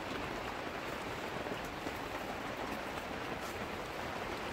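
Steady rain pattering on a canvas tent.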